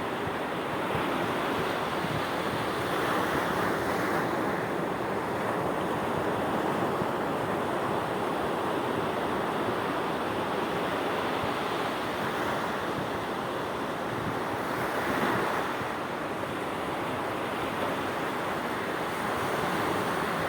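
Sea waves breaking and washing ashore: a continuous rush of surf that swells a little louder a few times.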